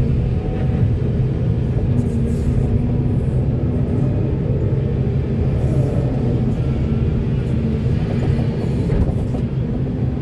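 Heavy construction machinery's diesel engine running steadily with a low, even rumble.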